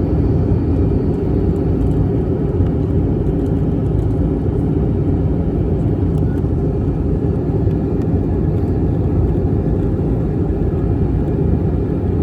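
Airbus A321-200 cabin noise: the steady, even rumble of the airliner's engines and airframe heard from inside the economy cabin.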